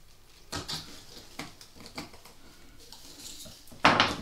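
Knife trimming excess puff pastry from the rim of a pie dish: a few light taps and clicks of the blade against the dish edge, then one louder knock near the end.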